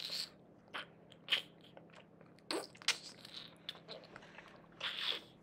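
Slime squelching and crunching in short, irregular bursts, the strongest near the start and about five seconds in.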